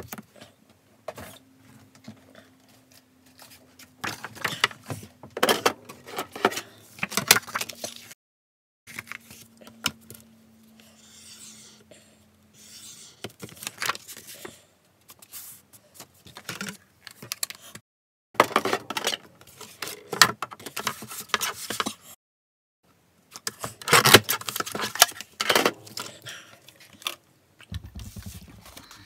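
Sheets of card stock being handled on a craft cutting mat: paper rustling, sliding and scraping, with small taps and clicks, in several bursts.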